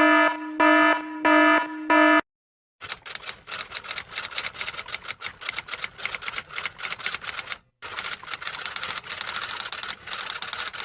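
A stock sound-effect clip: an electronic buzzer-like alarm beeps four times, then comes rapid typing, a clatter of many key clicks a second, with one short pause partway through.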